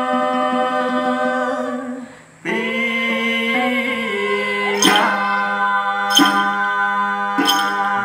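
Tày then singing: long held, slowly sliding sung notes, with a short breath break about two seconds in. In the second half, three plucked strokes on a đàn tính, the gourd-bodied long-necked lute, come under the voice.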